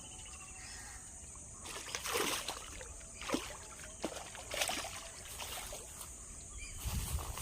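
Water splashing and rustling in short irregular bursts, about one every half second to a second, after a quiet start.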